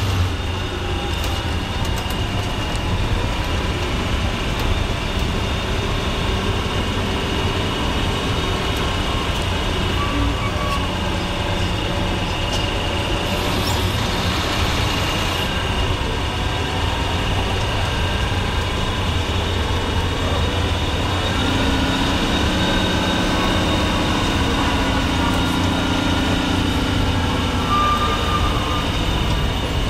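Bus engine running and tyres rolling on a gravel road, heard from inside the bus cabin as a steady low rumble. The engine note shifts in the second half.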